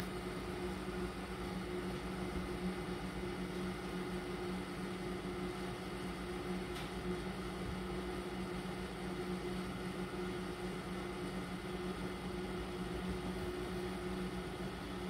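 Egg incubator's fan motor running with a steady low hum.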